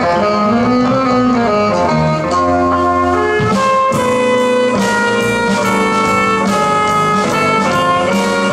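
Small live jazz band playing: trumpet out front over saxophone, bass guitar and drum kit. A little before halfway the drums get stronger, with cymbal crashes.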